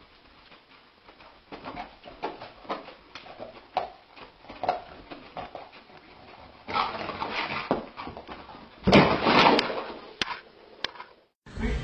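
A sleeping dog whimpering and yipping in short bursts as it dreams, its legs paddling. The sounds get louder, with the loudest burst about nine seconds in as it jumps up and runs off, followed by a few sharp knocks.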